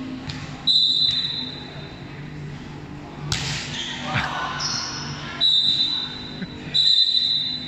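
A volleyball struck with a sharp smack about three seconds in, ringing in a large echoing hall. Players' voices go on underneath, with several short, high, steady squeals.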